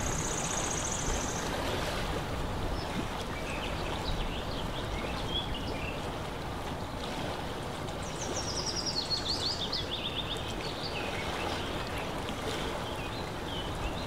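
Steady lakeside water-and-wind ambience, with small birds calling over it: a fast high trill at the start, scattered chirps, and a falling trill a little past the middle.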